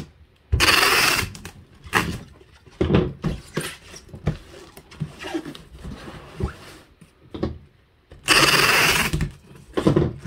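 Packing tape pulled off the roll in two long strips, about half a second in and again near the end, sealing a cardboard box. Between the two pulls come quieter taps and rustles of cardboard being handled.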